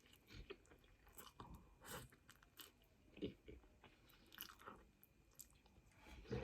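Faint close-miked chewing of a mouthful of egg noodles, with scattered small mouth clicks.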